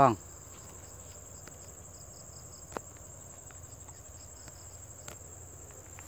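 Insects chirring in one continuous high-pitched drone, with a single faint click about three seconds in.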